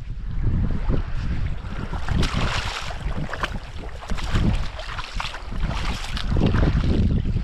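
Wind buffeting the microphone with a heavy low rumble, and small waves washing over the sand at the water's edge, the wash becoming louder about two seconds in.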